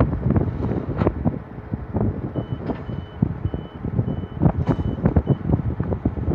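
Tractor and round baler running in a hay field, with wind buffeting the microphone in uneven gusts. From about two seconds in, a faint high electronic beep sounds about six times in a steady rhythm, roughly two beeps a second.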